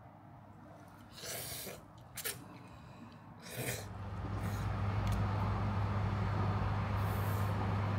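Three short hissing bursts, then from about halfway a steady low engine hum over street noise: outdoor city traffic ambience.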